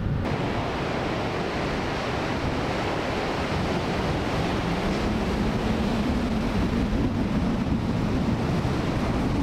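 Small ocean waves breaking and washing up a flat sandy beach in a steady surf wash, with wind buffeting the microphone.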